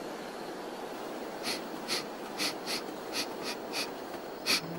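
A dog sniffing along the ground: a run of about eight short, quick sniffs starting about a second and a half in, over a steady rushing of wind.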